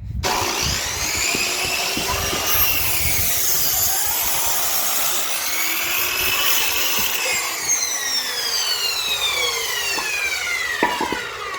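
Electric power saw cutting wood, its motor noise steady and loud. Near the end the motor's whine falls slowly in pitch as the blade spins down.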